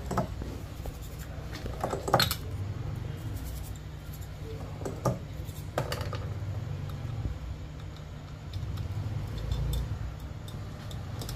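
Scattered small clicks and taps of a smartphone's circuit board and plastic housing being handled and fitted together, the sharpest about two seconds in, over a steady low hum.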